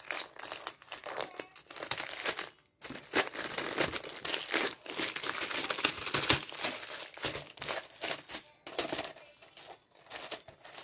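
Clear plastic sleeve crinkling and rustling as a rolled diamond painting canvas is handled and slid out of it, in irregular crackling strokes with a couple of short pauses.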